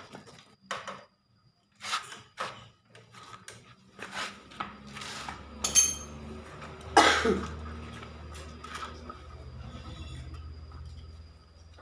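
Metal tools and engine parts clinking and knocking as a two-stroke engine is being taken apart, a dozen or so separate clanks. A low steady hum comes in about four seconds in.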